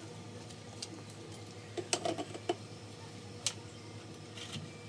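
A spoon clinking and tapping against a bowl during a meal of oatmeal: a few scattered light clicks, bunched about two seconds in, with a sharper one past the middle, over a faint steady hum.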